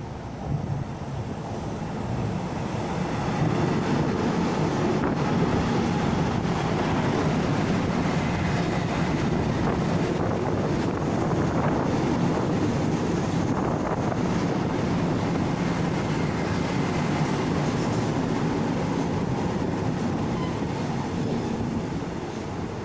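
Taiwan Railways EMU600-series electric multiple unit pulling into a station, its wheels and running gear rumbling along the platform. The noise swells over the first few seconds, holds steady, and eases near the end as the train slows to stop.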